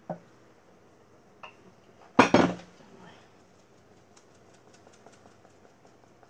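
Kitchenware clatter while blended guajillo chile sauce is strained through a metal mesh strainer into a bowl: a short knock at the start, a loud clatter about two seconds in, then faint light ticks.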